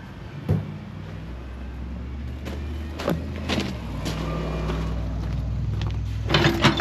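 A motor vehicle's engine idling steadily, with a knock about half a second in, a few clanks around three seconds, and loud rattling metal clatter near the end.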